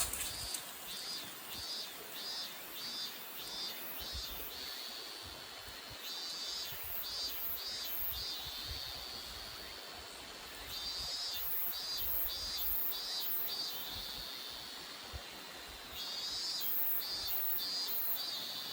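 Cicadas calling in a repeated pulsing, high-pitched song, about three pulses a second, coming in bouts of a few seconds with short pauses between them, over a steady background hiss.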